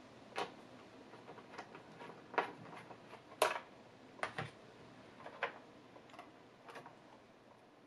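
About a dozen small, sharp clicks and taps at irregular intervals, the loudest about two and a half and three and a half seconds in: a screwdriver and small metal and plastic parts being handled inside an opened tablet computer.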